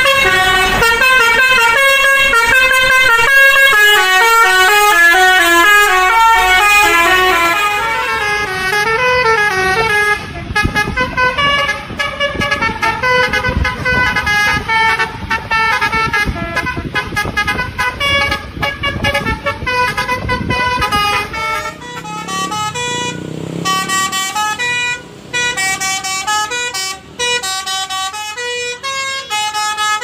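Telolet basuri musical bus horns playing quick melodies of stepping tones, one coach after another, with the tune changing about ten seconds in and again a little past twenty seconds.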